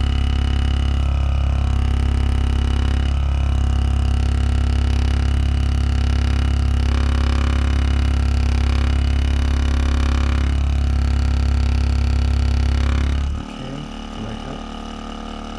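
A small electric motor running with a loud, steady low hum, which cuts off suddenly about 13 seconds in.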